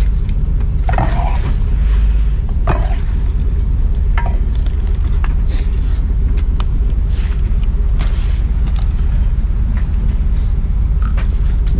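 A fishing trawler's diesel engine runs steadily with a low rumble, with scattered short clicks and knocks on top.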